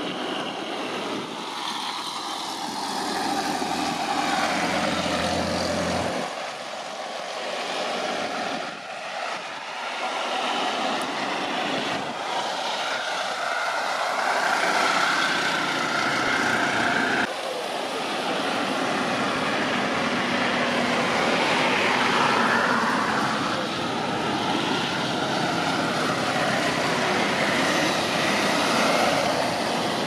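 Boeing 787 airliner's jet engines running at taxi power as it turns and lines up on the runway: a steady roar with a whine, changing suddenly in tone a couple of times.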